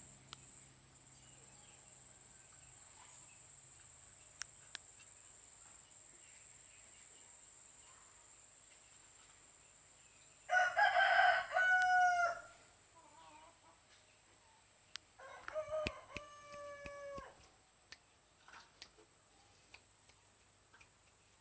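A rooster crows twice: a loud crow about ten seconds in, then a fainter one about five seconds later, each starting rough and ending in a held tone that falls away.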